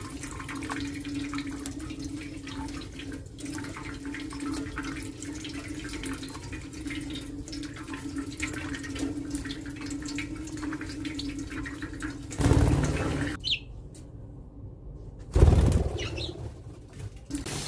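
Thin stream of tap water running onto a steel plate in a kitchen sink, with splashing as a budgerigar bathes in it, and a steady low hum underneath. Two short loud bursts break in about two-thirds of the way through and again a few seconds later, with a brief near-silent gap between them.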